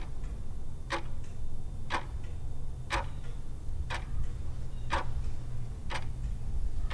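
Clock-tick sound effect of a ten-second countdown timer, one sharp tick each second, over a low steady hum.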